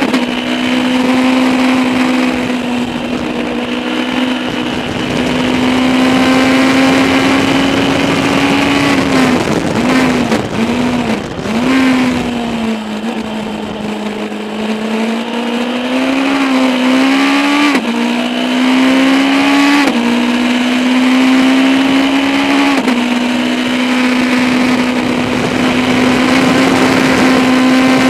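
Legends race car's Yamaha four-cylinder motorcycle engine running hard at high revs, heard from inside the cockpit. Near the middle it eases off with a few quick throttle blips, then pulls back up through the gears with three sharp upshifts before holding high revs again.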